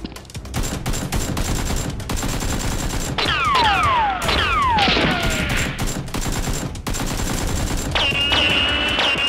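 Bursts of rapid machine-gun-style gunfire. Two falling whistles come about three to four seconds in, and a high steady tone starts near the end.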